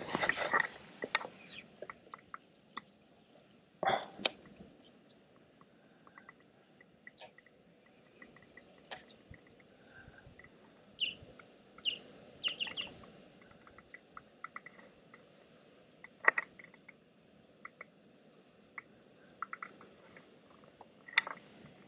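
A baitcasting reel's spool whirring down in pitch as a cast goes out at the start. After it come scattered bird chirps and a few sharp clicks over a faint low rush of water.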